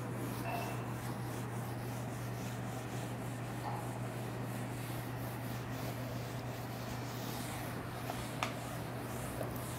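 A whiteboard duster rubbing across a whiteboard in repeated strokes as the board is wiped clean, over a steady low hum. A single sharp click sounds near the end.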